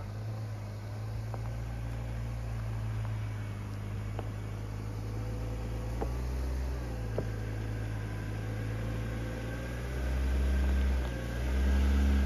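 Land Rover LR2 engine running at low revs as the SUV crawls over a rutted, rocky dirt trail, with a few sharp knocks along the way. The engine gets louder twice near the end as the driver gives it more throttle through the ruts.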